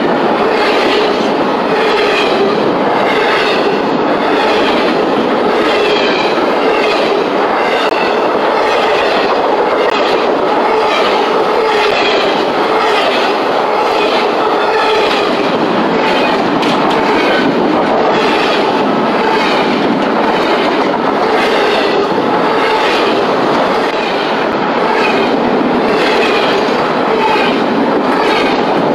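Freight train of intermodal well cars rolling past close by. Its steel wheels keep up a loud, steady rumble with a regular, repeating clickety-clack over the rail joints.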